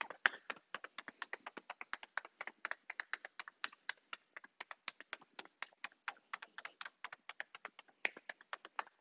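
Loose fists tapping rapidly on the outside of a thigh, a fast, even patter of light taps, several a second.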